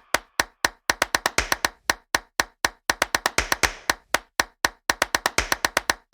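A quick, uneven run of sharp claps or clicks with dead silence between them: a percussion-only break in the background music.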